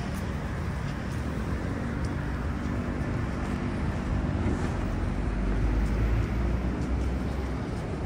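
City traffic noise: a steady low rumble of passing vehicles, swelling louder for a couple of seconds in the second half.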